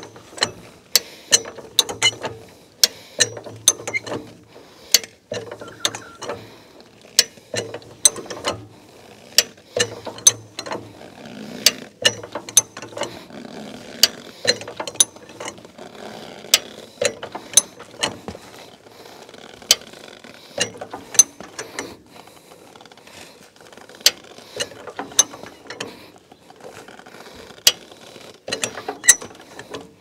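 Hi-Lift jack ratcheting as its handle is pumped: sharp metallic clacks of the climbing pins, about two a second, as the jack's foot is forced down on a stubborn tyre bead to break it off the rim.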